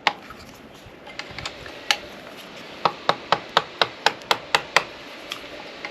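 Ratchet wrench clicking as 8 mm bolts are tightened down: a single click about two seconds in, then a run of sharp, evenly spaced clicks about four a second.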